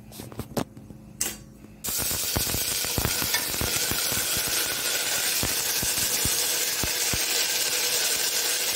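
Ginger-garlic paste frying in hot oil in a pressure cooker. After a few light knocks, a loud sizzle starts suddenly about two seconds in and carries on steadily, with the ladle clicking and scraping against the pot as it is stirred.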